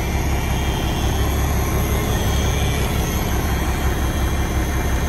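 The truck's Cummins Big Cam 4 straight-six diesel idling, heard from inside the cab as a steady low rumble.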